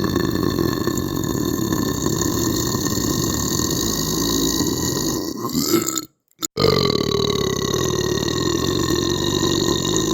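A person belching: two long, drawn-out belches. The first lasts about six seconds and stops abruptly, and after a short silence the second starts and carries on.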